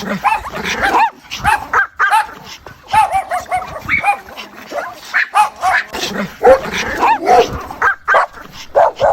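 Dog whining and yipping in short, high calls that rise and fall, several a second and sometimes overlapping. It is presented as a mother dog calling her puppies.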